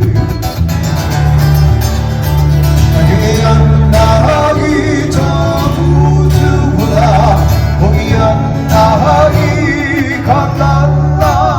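Live Hawaiian song: a voice singing a melody with vibrato over guitar and a steady, prominent bass line.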